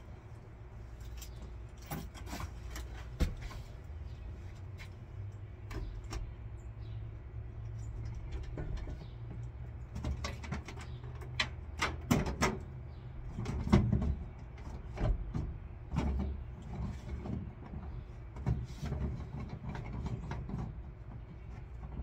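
Scattered clicks, knocks and light rattles of hand work with tools and parts inside a van, thickest around the middle, over a low steady rumble.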